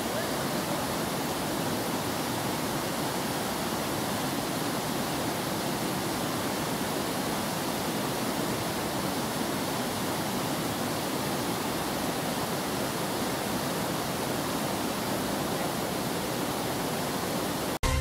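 Swollen, fast-flowing floodwater of a river rushing past: a steady, even wash of water noise that cuts off suddenly near the end.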